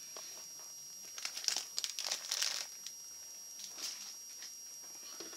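Plastic soft-bait packaging crinkling as it is handled, in irregular rustles from about a second in to nearly three seconds, then one short rustle near four seconds.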